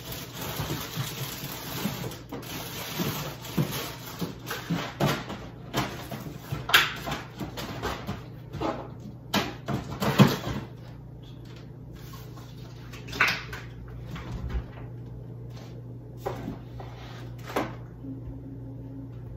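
Groceries being put away in a refrigerator and kitchen cupboard: rustling packaging with a busy run of knocks and clunks as items are moved and set down, thinning out to a few separate knocks after about eleven seconds, over a steady low hum.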